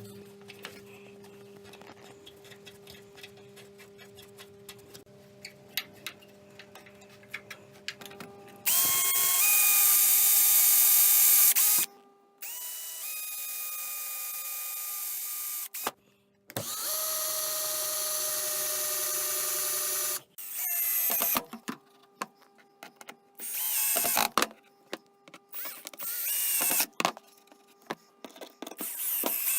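Electric drill running in three long runs of about three to four seconds each, starting about nine seconds in, then a string of shorter bursts near the end. The fixing holes are being drilled into the cast-iron table-saw wing and the wooden strip. The first several seconds hold only small clicks and a faint steady hum.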